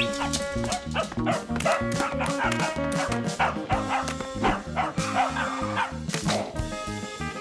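Lively background music with a steady, repeating bass beat and many quick percussive hits.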